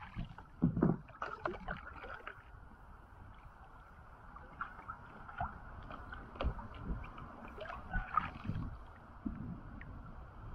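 Kayak paddle strokes splashing and knocking a few times in the first two seconds, then river water gurgling and lapping along the plastic hull as the kayak drifts, with scattered small drips and knocks.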